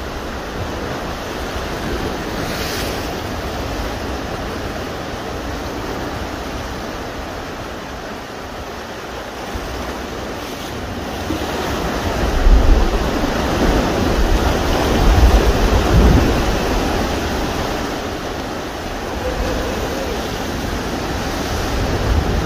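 Sea surf washing and breaking against a rocky shore, a steady rush that swells louder about halfway through, with wind buffeting the microphone in deep rumbling gusts.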